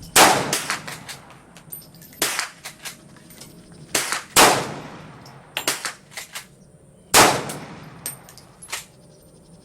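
FN FAL 7.62×51mm battle rifle fired semi-automatically: five loud shots one to three seconds apart, two of them close together, each trailing off in echo, with fainter sharp cracks between.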